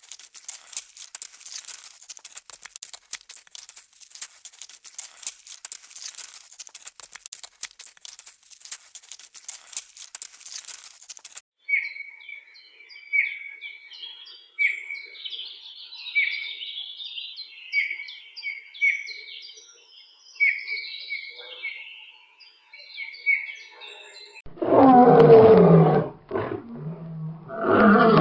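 A dense, rapid crackle of clicks lasts about eleven seconds, then a bird sings a phrase of short chirps repeated about once a second. Near the end, a lion roars loudly twice, and the roars are the loudest part.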